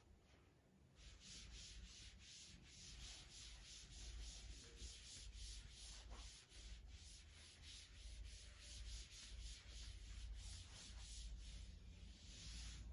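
Writing board being wiped with a duster: faint, rhythmic rubbing strokes, about three a second, starting about a second in.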